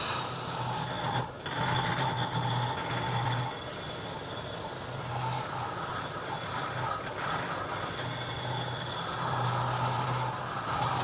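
Wood lathe running with a turning tool cutting a long piece of spinning wood: a steady motor hum under a scraping, hissing cut. The sound breaks off briefly about a second in.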